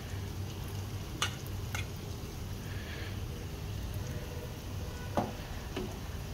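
Mysore bonda batter balls deep-frying in hot oil, sizzling and bubbling steadily over a low hum. Four sharp clicks come through, two about a second in and two near the end.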